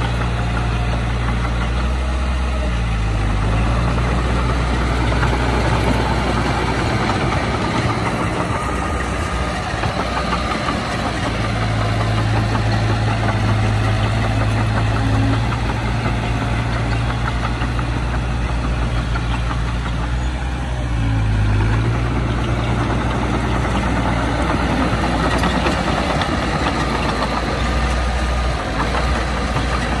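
Heavy diesel earthmoving machinery running steadily, a deep low engine hum under a continuous rough mechanical noise. The low note shifts in strength a few times.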